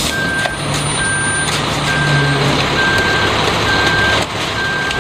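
Concrete mixer truck's backup alarm beeping steadily, a short single-pitched beep about once a second. Under it runs the truck's engine and a loud steady rush as concrete slides down the front chute.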